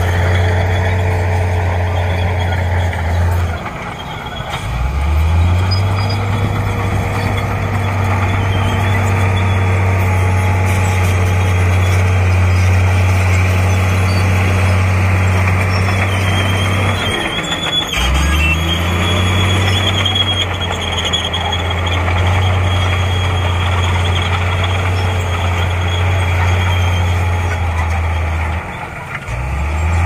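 Heavy earthmoving machine's diesel engine running hard with a steady low drone. Its speed drops off three times, about four seconds in, just past halfway and near the end, and each time it revs back up.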